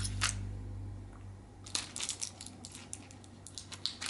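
Plastic blister packs of tablets crinkling and crackling as tablets are pressed out through the foil, in clusters of sharp crackles about two seconds in and again near the end.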